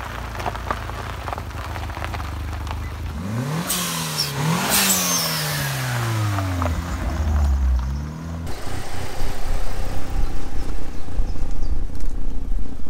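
Mitsubishi Lancer Evolution VIII's turbocharged 4G63 four-cylinder engine revving as the car drives: the revs climb sharply about three seconds in, then fall away over the next few seconds. After that, a steadier low engine rumble.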